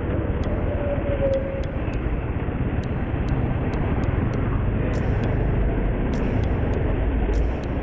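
Motorcycle running at low speed in city traffic, its engine drone mixed with wind rumble on the rider's microphone. Faint gliding engine tones are heard in the first two seconds as the bike slows.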